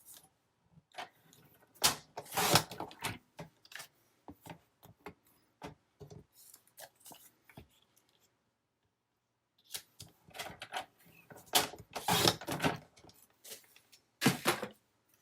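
Paper and card being handled and trimmed: irregular rustles, snips and light taps, with a short quiet pause about halfway through.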